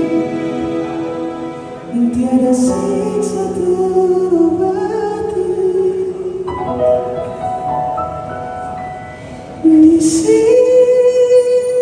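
A male singer singing long held notes into a microphone over his own electronic keyboard accompaniment, amplified through the stage sound system; it grows louder again near the end.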